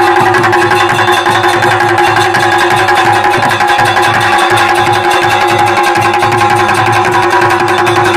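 Kumaoni chaliya band music: a masakbeen (bagpipe) sounding over a held drone, with dhol and damau drums beating a steady, even rhythm underneath.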